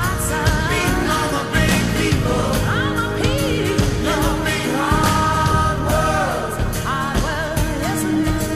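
Background song: a rock track with a singing voice over guitar and a steady drum beat.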